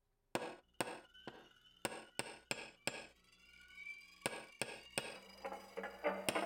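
A series of sharp metallic hammer strikes, roughly two a second, each leaving a ringing tone. Near the end, quicker, denser ticking and a low steady tone join in.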